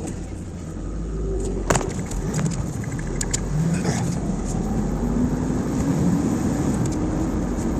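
Car engine starting back up under the start-stop system and the car pulling away, the engine note rising as it accelerates, heard from inside the cabin. A single sharp click comes about two seconds in.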